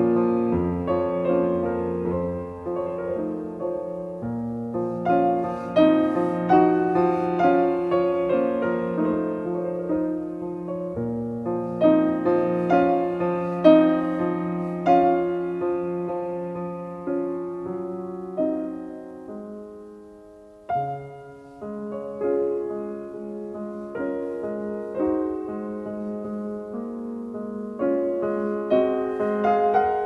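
Slow solo piano music, its notes ringing and fading; about two-thirds of the way through the playing dies away to a quiet moment before a new note starts it again.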